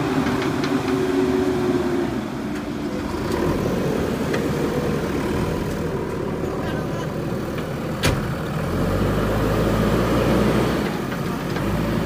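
JCB backhoe loader's diesel engine running while the backhoe arm digs. A single sharp knock comes about eight seconds in, and after it the engine works harder and louder for a couple of seconds.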